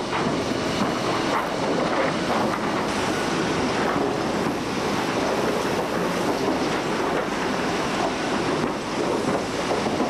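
Steady noise of sawmill conveyor machinery: chain conveyors carrying sawn boards where sideboards and planks are separated, with a few faint knocks.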